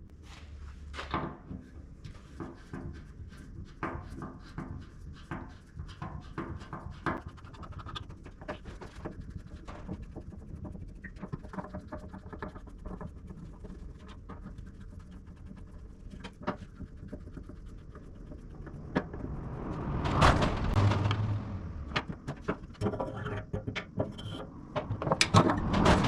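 Scattered clicks, scrapes and knocks of tools working on a steel fuel tank as it is stripped down, with a louder rushing burst about twenty seconds in and a cluster of sharper knocks near the end.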